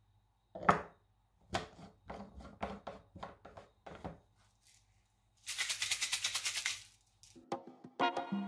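Plastic clicks and knocks as the blade lid is screwed onto a personal blender cup of coarse sea salt and dried lemon peel. About five seconds in, the blender runs for about a second and a half, the salt crystals rattling as they are ground. Background music starts near the end.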